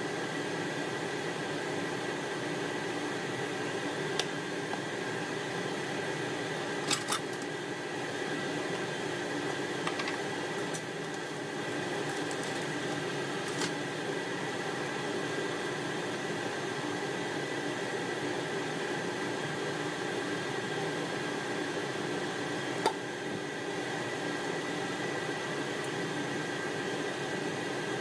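Butter and hot sauce sizzling gently in a frying pan on an induction hob, over the hob's steady fan hum with a thin whine. A few short clicks and taps as seasoning is shaken in.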